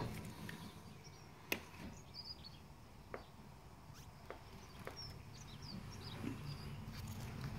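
Faint outdoor background with a few sharp clicks, the loudest about a second and a half in, and brief high bird chirps now and then.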